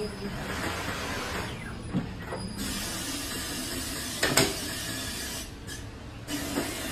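Compressed air hissing in long bursts from a pneumatic tyre-changing machine as its arm and clamp are worked, the longest hiss from about a third of the way in to past the middle, with two sharp metal clunks.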